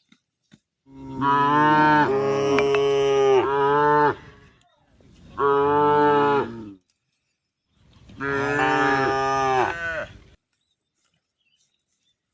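Cow mooing: three long, loud moos, the first the longest, with short pauses between them.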